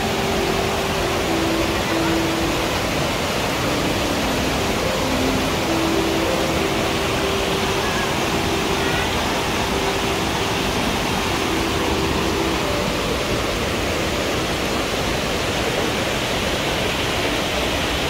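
Steady rushing of water pouring over a stepped cascade below a small waterfall, an even hiss that holds at one level throughout.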